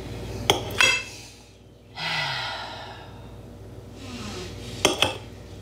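A pair of sharp clinks of a utensil against a glass baking dish, a person's breathy sigh about two seconds in, and two more clinks near the end.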